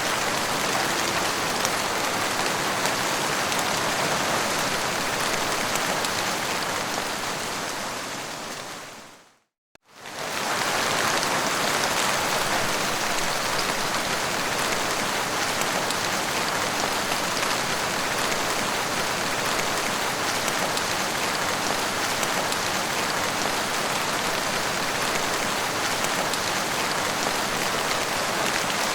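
Heavy rain falling: a steady, dense hiss. About a third of the way through it fades out to a moment of silence and then fades back in.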